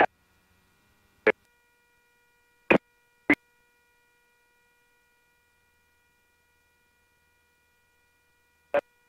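Aircraft radio and intercom audio: a faint steady electrical whine of several tones, broken by five brief crackling blips as the radio's squelch breaks open while the pilot tunes new frequencies.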